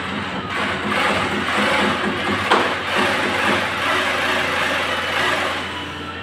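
Corded electric drill running under load, drilling into a partition for about five seconds, with a sharp click about two and a half seconds in.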